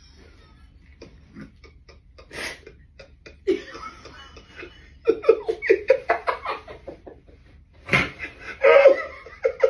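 A man and a woman laughing. A few stifled snickers come first, then it breaks into rapid, sustained laughter about halfway through. A single thump comes near the end.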